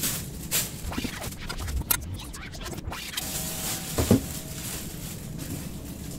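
Tubular metal chair-frame pieces knocking and clinking as they are handled and fitted together, with a plastic wrapping bag rustling. Scattered short knocks, the loudest about four seconds in, and a brief faint metallic ring shortly before it.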